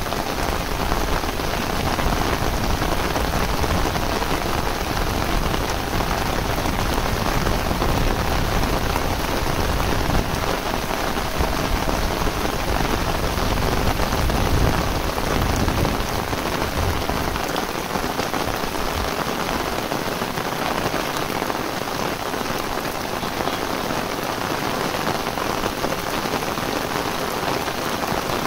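Heavy tropical rain falling steadily on fields and a concrete path, a dense even hiss of rain. A low rumble underneath eases off about halfway through.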